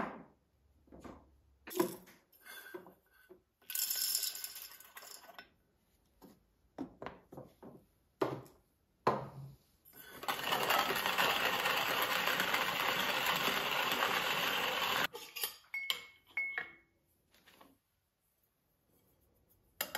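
Light clinks and knocks of kitchen items being handled, then a stainless-steel hand-cranked burr coffee grinder grinding beans steadily for about five seconds, followed by a few more light clicks.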